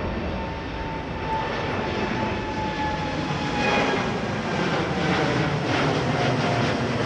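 Boeing 787 airliner's jet engines at takeoff power: a steady roar with a faint whining tone that slowly falls in pitch, growing louder about halfway through with a crackling rumble.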